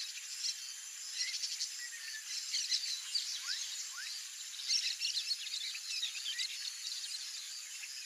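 Rusty-collared seedeater (Sporophila collaris) singing a fast, twittering song in bursts of quick high notes, over a steady high hiss.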